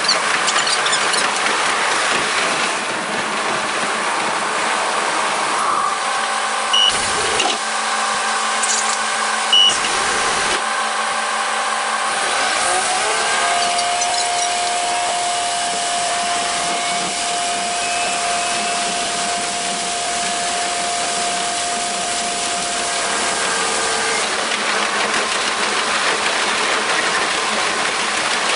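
Sped-up sound of a KiHa 47 diesel railcar at five times normal speed: two short high beeps with thuds at a station stop, then the diesel engine note rising about halfway through and holding a steady drone as the train pulls away. The clattering resumes near the end.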